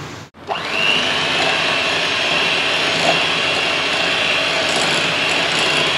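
Electric hand mixer running at a steady speed, its beaters whipping cream in a glass bowl, with a constant high whine over the motor noise. It starts about half a second in.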